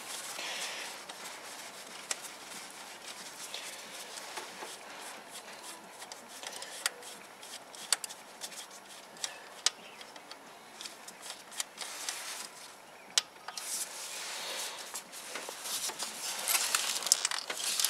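Gloved hands working a socket and ratchet on an ignition coil hold-down bolt: faint rubbing and rustling with a few scattered, irregular small metal clicks, and louder rustling near the end.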